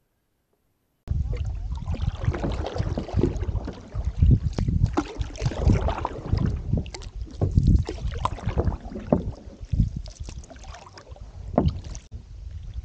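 Open canoe being paddled across a loch: water splashing and lapping against the hull in irregular bursts, with wind buffeting the microphone in a heavy low rumble. It starts about a second in.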